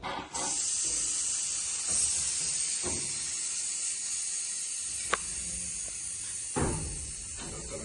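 Compressed air hissing steadily from the workshop's air line or pneumatic tool. The hiss starts abruptly, with a sharp click about five seconds in and a knock near the end.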